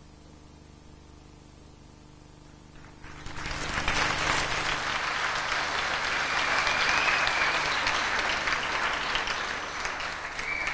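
Audience applauding, starting about three seconds in and holding steady, thinning near the end; before it only quiet room tone.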